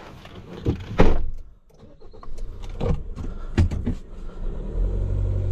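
A car door shuts with a thud about a second in, then the Maxus pickup's engine is started and runs steadily, with a few light clicks from the cabin controls. Its low hum grows stronger and even about four and a half seconds in.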